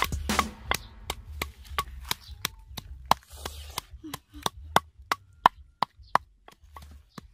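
Wooden pestle pounding red chillies and garlic in a mortar: a steady run of dull knocks, about three a second.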